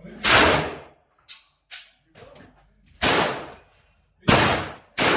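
Four shots from a Glock 19 9 mm pistol fired in slow then quickening succession, each a sharp crack with a short echoing tail. Two fainter sharp clicks fall between the first and second shots.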